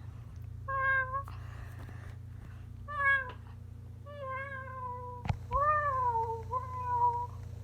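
Five meows in a row: short pitched calls, the later ones longer and falling in pitch at the end.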